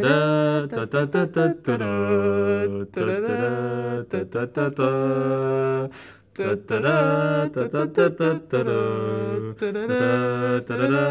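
A person's voice humming long, low held notes, chopped into short stop-start pieces with pitch bends where each piece begins. It breaks off briefly about six seconds in, then resumes.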